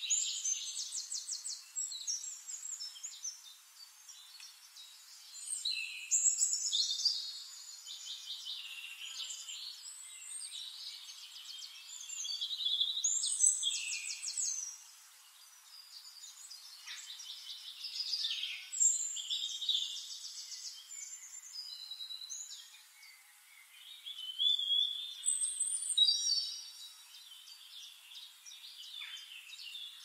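Songbirds singing: quick trilling and whistled song phrases that swell loud about every six seconds, with softer chirps between.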